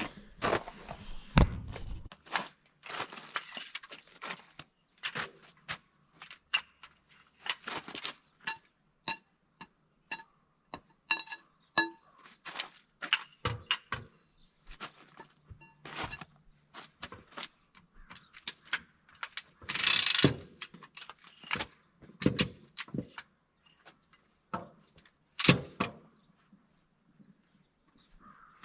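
Metal tools and equipment being handled: an irregular run of clinks, clicks and knocks, a few with a short metallic ring, and louder knocks about twenty and twenty-five seconds in.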